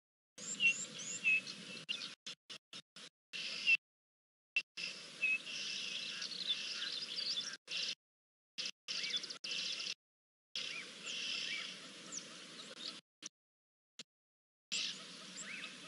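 Birds chirping and calling in short rising and falling notes over steady outdoor background noise, with the sound cutting out to silence again and again in brief gaps, the dropouts of a choppy live-cam stream.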